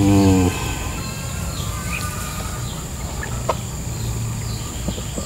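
Rural outdoor ambience with small birds chirping faintly and a steady high whine, opened by a short, low, pitched call lasting about half a second; a single sharp knock about three and a half seconds in.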